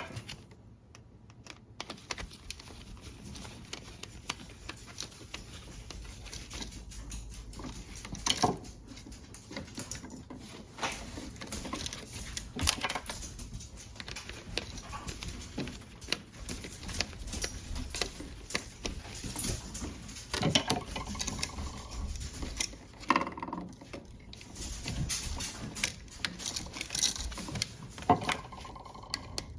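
Hand-tool work on a light switch: irregular small clicks, taps and scrapes of a screwdriver, wire and switch terminals as the wires are wrapped around the terminal screws and tightened, with a couple of brief squeaks in the second half.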